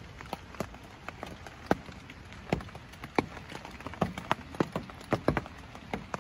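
Raindrops tapping on the fabric roof of a hunting ground blind: irregular sharp taps, several a second, over a steady soft hiss of rain.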